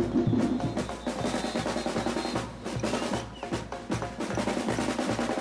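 Gombey troupe drumming: snare and bass drums beating a fast, steady, driving rhythm.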